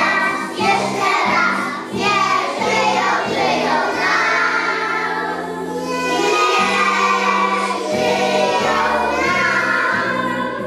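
A group of young children singing a song together in unison, over an instrumental accompaniment that holds steady low notes. Around the middle they hold one long note for a couple of seconds.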